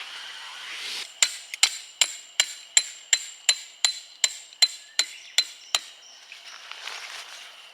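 Hammer driving a metal tent stake into the ground: about fifteen evenly spaced, ringing metal-on-metal blows, just under three a second, that stop about six seconds in.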